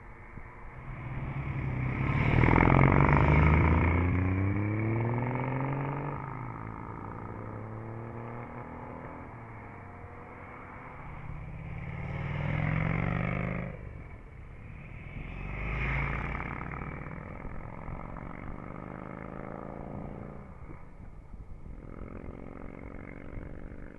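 Motor vehicles passing close by one after another, engines accelerating away. The loudest pass comes about two to four seconds in, its engine note climbing as it pulls away. Two smaller passes follow around twelve and sixteen seconds in, with engine sound carrying on steadily between them.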